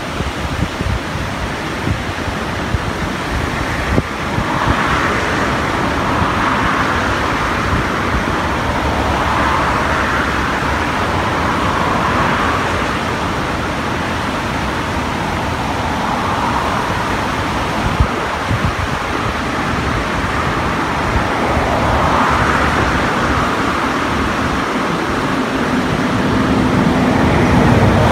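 Steady rushing noise of a muddy river swollen with rain, swelling and easing every few seconds, with wind buffeting the microphone. A low steady hum comes in near the end.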